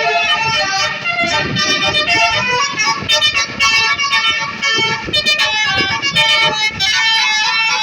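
Bus 'telolet' basuri musical horn playing a fast melody of stepped notes, over vehicle rumble.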